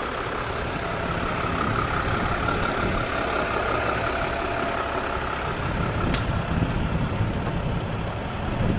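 Passenger van's engine idling steadily, with a single sharp click about six seconds in.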